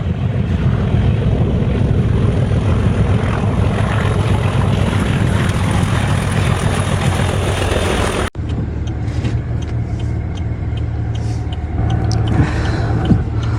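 Steady vehicle noise, an engine and road rumble. It cuts off abruptly about eight seconds in and gives way to a similar rumble with faint, evenly spaced ticks.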